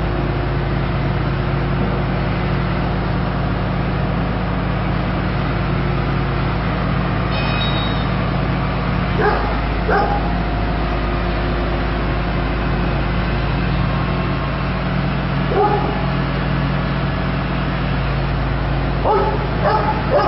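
A dog barks a few short times over a steady engine drone: a pair of barks near the middle, one more later, and three in quick succession near the end.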